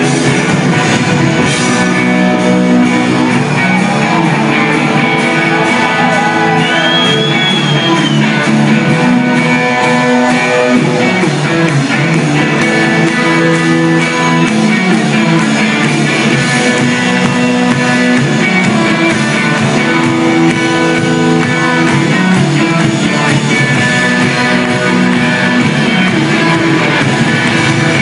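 Rock band playing live, loud and continuous: electric guitars and drum kit with singing, heard through the venue's PA from within the crowd.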